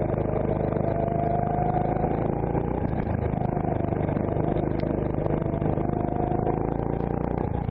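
Rental go-kart engine running under the driver, heard from on board. Its note sags and picks up again as the kart slows for corners and accelerates out of them.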